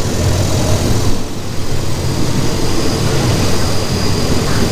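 Diesel passenger train with a steady low rumble as it slows to stop at a station, heard from inside the carriage. A thin, high steady whine sets in about a second and a half in.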